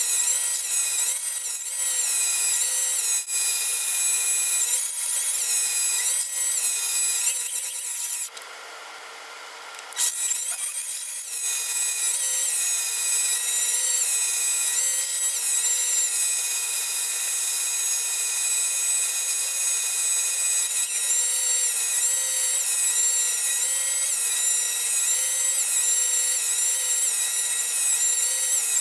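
Mini lathe running and turning a taper on an aluminum part with a carbide tool: a steady motor-and-gear whine with the cutting noise on top. The sound drops away briefly about eight seconds in, then resumes.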